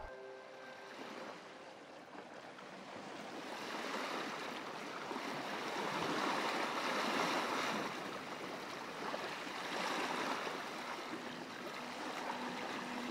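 Sea waves washing onto a sandy beach, an even rushing noise that swells and ebbs, loudest about halfway through and again a little later.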